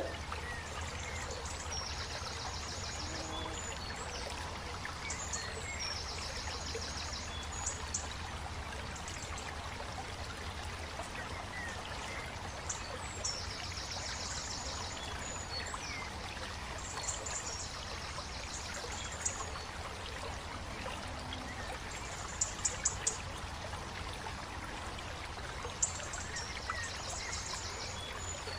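Water pouring and splashing steadily over plastic toy vehicles on wet ground, with short high trilling calls several times over and a few sharp clicks about three-quarters of the way through.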